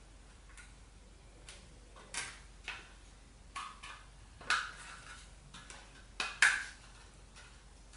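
Clicks and short scrapes of a clear plastic 2.5-inch drive enclosure as the SSD is fitted into it and the case is pressed together: a string of about seven sharp clicks, the loudest about four and a half and six and a half seconds in.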